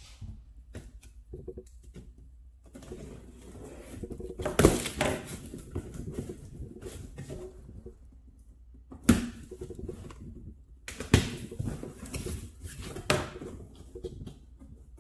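A cardboard box being opened and unpacked by hand: scattered rustling, scraping and clicking, broken by four sharp knocks, the loudest about four and a half seconds in and the others around nine, eleven and thirteen seconds.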